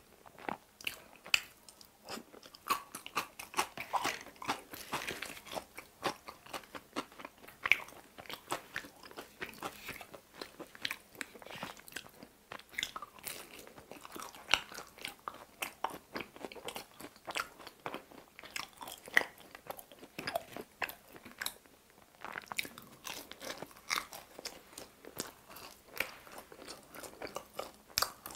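A person chewing and crunching close to the microphone: a pickle slice and pieces of cheese-filled pizza crust, with irregular sharp crunches throughout.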